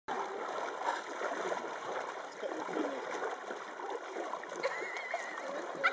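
Canoe paddles dipping and stroking through calm river water: soft, steady trickling and gurgling of water with small scattered splashes. A brief high wavering sound comes in near the end.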